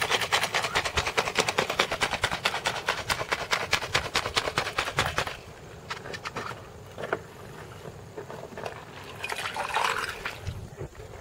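Chunks of glacier ice rattling with lime, sugar and cachaça inside a closed drink shaker as it is shaken hard for a caipirinha: a fast, even clatter of about six knocks a second that stops about five seconds in.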